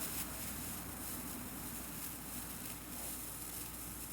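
A lighter's flame hissing steadily as it is held to a moxa stick of mugwort to light it.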